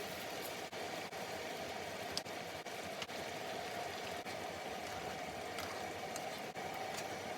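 Chicken teriyaki steadily bubbling and sizzling in its sauce in a pan, with a few small pops.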